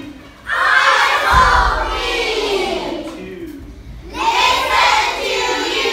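A class of children chanting loudly together in unison, in two shouted phrases with a short break about three and a half seconds in.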